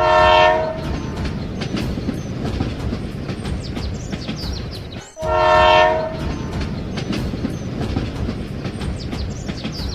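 Train running with a steady rumble and clacking, sounding its horn twice, each blast under a second, about five seconds apart.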